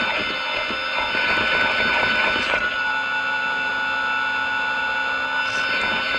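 ARRMA Big Rock 3S RC truck with a sensored brushless motor crawling slowly through a corrugated metal pipe. The motor and speed controller give a steady high electronic whine throughout, and for the first half the tyres make a rough rattle over the corrugations that eases off about halfway through.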